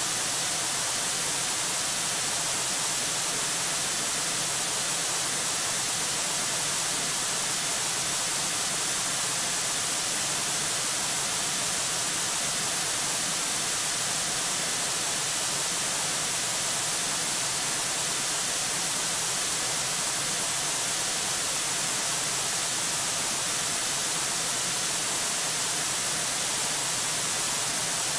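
Steady, unchanging hiss of static from the eagle nest camera's microphone, strongest in the high range, with no calls or other sounds standing out.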